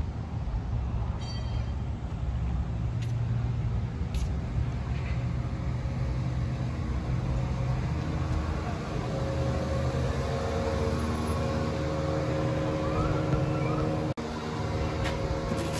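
Steady low rumble of outdoor traffic and machinery, with a few faint clicks. A steady hum joins in about nine seconds in.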